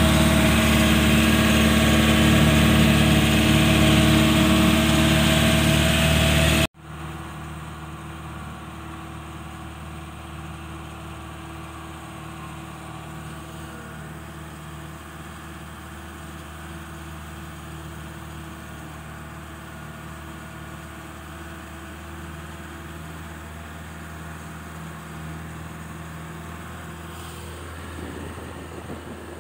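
A vehicle's engine running steadily while driving, loud from inside the cabin at first. About seven seconds in, the sound cuts off abruptly and gives way to a quieter, steady engine hum.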